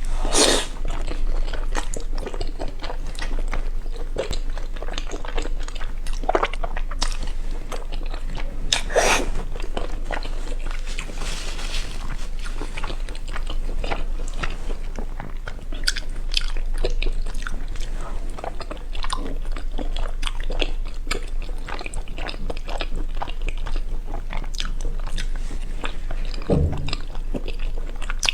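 Close-miked eating sounds: a person biting and chewing food, with irregular crunches and wet clicks, a few louder bites among them.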